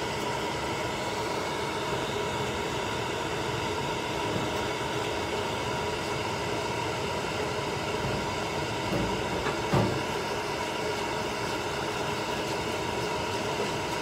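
Hair dryer running steadily, a constant rush of air with a motor whine, blowing on a chinchilla's wet fur. A brief knock about ten seconds in.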